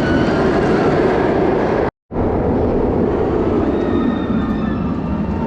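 A train rolling on rails: a steady, loud rumble with faint high squealing tones over it. It cuts out for a split second about two seconds in and then carries on.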